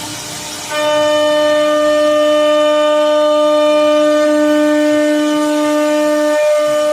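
CNC router spindle running with a steady, high-pitched whine that comes in suddenly about a second in and holds one pitch.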